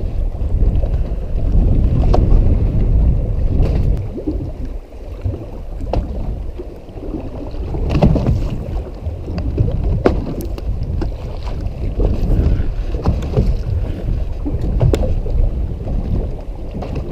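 Wind buffeting the microphone and water sloshing around a boat on a choppy sea: a low rumble that is heaviest for the first few seconds, then rises and falls irregularly. A few sharp clicks sound over it.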